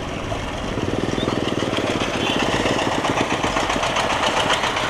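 Motorcycle engine running during a ride. From about a second in it is joined by the rapid, steady pulsing of a goods vehicle's engine passing close by, and the sound grows a little louder.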